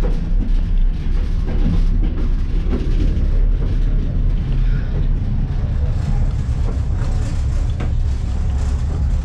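Passenger train running, heard from inside a sleeper compartment: a steady low rumble of the carriage on the rails, with an occasional sharp knock.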